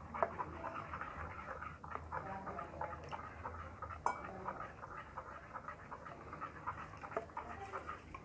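Metal spoon stirring thick rice-flour batter in a glass bowl: a steady run of wet swishing and scraping, with small clicks of the spoon against the glass and a sharper click about four seconds in.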